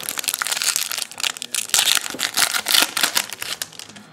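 Foil wrapper of a Bowman Platinum baseball card pack crinkling and tearing as it is opened by hand, a dense run of crackles that fades near the end.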